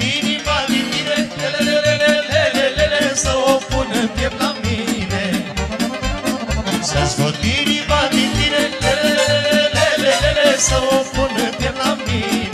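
Live Romanian taraf dance music (a horă) played through a PA: accordion and violin carry the melody over a quick, steady bass beat.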